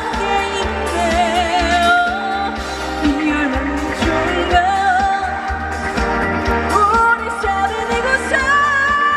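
Trot music played loud on a stage sound system: a wavering, vibrato-laden melody line over a steady bass and beat.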